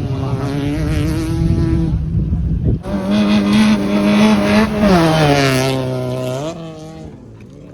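Rally car engines at high revs on a gravel stage. About three seconds in, a second car bursts in revving hard. About five seconds in its pitch drops, and it fades away after about six and a half seconds.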